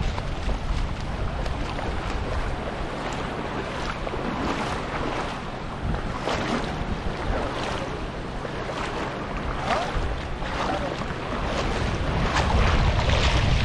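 Wind buffeting the microphone with a low rumble, stronger near the end, over shallow seawater splashing and lapping in short, repeated gushes.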